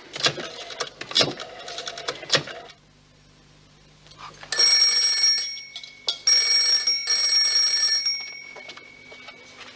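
Landline telephone ringing twice, starting about four and a half seconds in, the second ring longer than the first.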